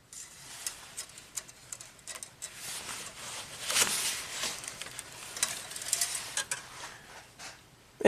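Engine oil dipstick pulled from its tube and wiped with a shop rag to check the oil level: irregular rustling, scraping and small metal clicks, with the heaviest rustle about halfway through.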